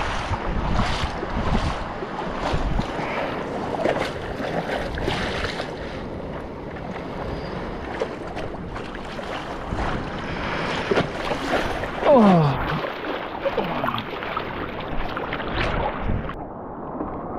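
Water splashing and lapping around a surfboard as a surfer paddles out through shallow water, with wind on the microphone and splashes about once a second early on. About two-thirds of the way in there is a brief, loud falling tone, and near the end the sound turns muffled as the camera dips into the water.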